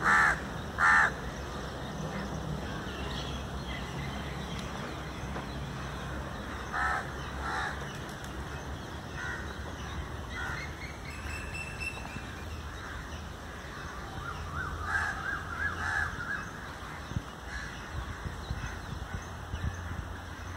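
Crows cawing: two loud caws about a second apart right at the start, two more about seven seconds in, and fainter calls later on, over a low steady rumble.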